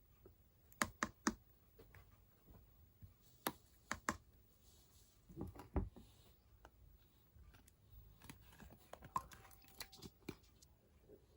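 Faint, irregular clicks and light taps, scattered and unevenly spaced, with a few sharper ones standing out.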